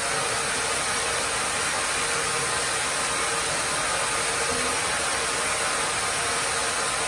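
Sawmill headrig machinery running steadily, the band saw and its motors giving an even hiss over a faint hum.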